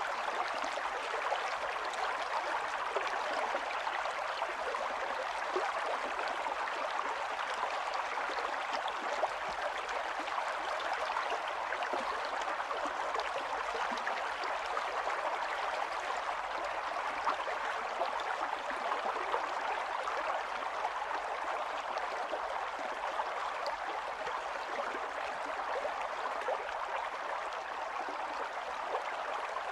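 Steady rain falling, a constant even hiss flecked with many small drop ticks.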